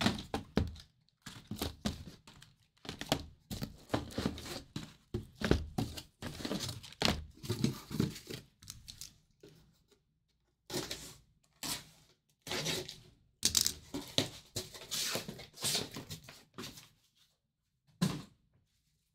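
Packaging being torn open and crinkled in irregular short bursts, with occasional thunks: plausibly the wrapping and cardboard of a Topps Tribute trading-card case or its boxes. There are brief pauses about ten seconds in and again near the end.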